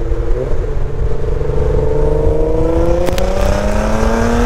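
Car engine accelerating hard: after an upshift about half a second in, its pitch climbs steadily as it pulls through the gear. It runs over a heavy low rumble of wind and road noise, with a single click about three seconds in.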